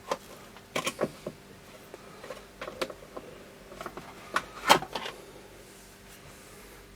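Soldering station's case and parts being handled during teardown: a scattering of sharp clicks and knocks, the loudest about three quarters of the way through, then a quieter stretch.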